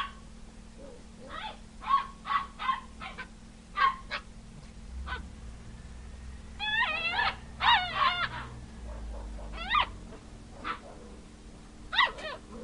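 Basset hound puppy yipping and whining in play: a string of short high yips, then a burst of longer wavering whines about seven seconds in, and a few more yips near the end.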